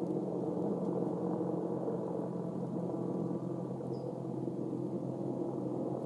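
A steady low mechanical drone with several held tones, with a faint short high chirp about four seconds in.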